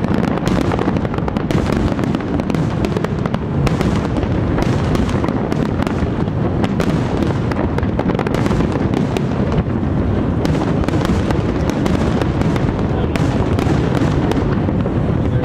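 Large aerial fireworks display going off in a dense, continuous barrage of sharp crackles and bangs over a low rumble of booms.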